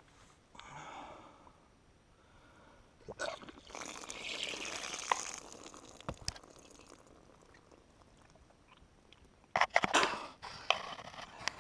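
A person being sick: retching and throwing up liquid that splatters onto the dirt trail, with a burst of splashing a few seconds in and loud coughing and spitting near the end.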